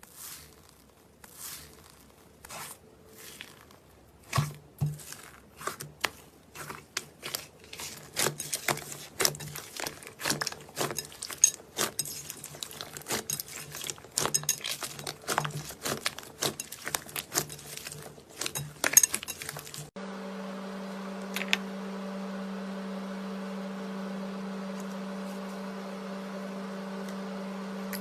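Slime being squeezed and worked by hand, making many small sharp clicks and pops that come faster and louder over about twenty seconds. About twenty seconds in, this cuts abruptly to a steady hum with only an occasional click.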